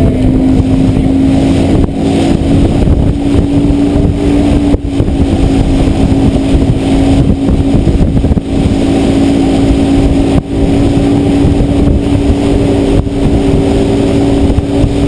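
Evinrude 150 two-stroke outboard running at a steady speed, towing a water-skier, with the rush of the boat's wake and wind underneath.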